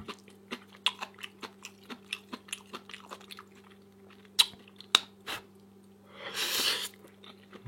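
Close-up chewing of crunchy, spicy vegan kimchi: a run of quick wet crunching clicks, then a few louder crunches. A short hiss like a sharp exhale comes about a second before the end, over a faint steady hum.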